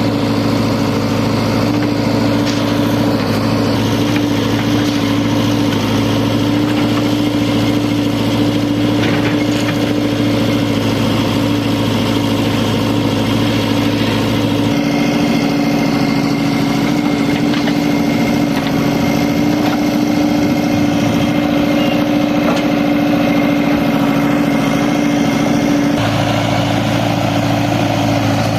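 Heavy-machinery diesel engine running steadily, from a backhoe loader or tractor working at a mud-loading site. A lower hum in the sound drops away about halfway through and comes back near the end.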